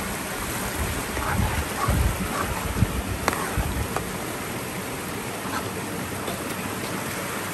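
A river flowing steadily. Between about one and four seconds in there are a few dull thumps, and near the middle a single sharp clink of the metal ladle against the pot being stirred.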